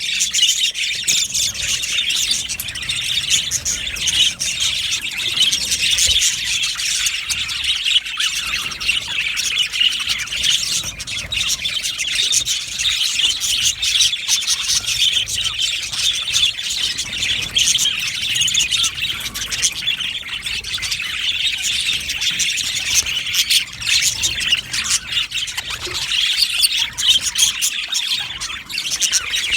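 A flock of budgerigars chattering, chirping and squawking continuously, many birds calling over one another.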